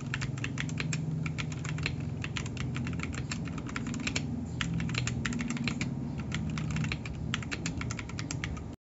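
Zifriend ZA68 Pro 65% mechanical keyboard being typed on quickly, a fast steady run of key clacks with a few brief pauses, stopping abruptly near the end.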